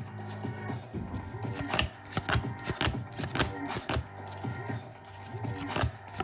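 Football trading cards handled and flipped through by hand, a run of irregular quick clicks and snaps as the cards slide and tap against each other, over quiet background music.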